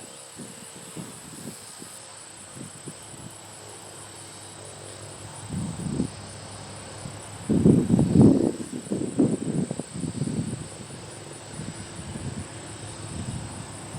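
The last of the Federal Signal 2001-130 siren's wind-down falls away in the first moment, leaving a steady chorus of insects. From about halfway in, low gusts of wind buffet the microphone, loudest around the middle.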